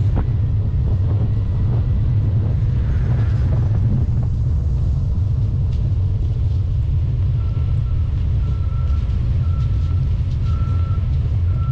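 Steady wind rumble on the microphone of a camera riding along on a bicycle. From about two-thirds of the way through, a backup alarm beeps in a single pitch about once a second.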